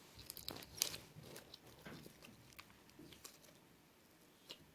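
Faint crackling and clicking of slime being squeezed and worked by hand, busiest in the first two seconds and then only a few scattered pops.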